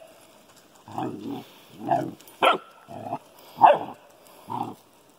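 Dog giving a string of about six short play barks mixed with low, growly grunts, spaced roughly half a second to a second apart, the sharpest about two and a half and three and a half seconds in.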